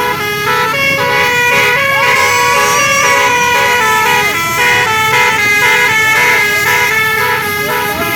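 Bus telolet basuri horn, a set of multi-tone musical air horns, playing a tune with notes changing several times a second.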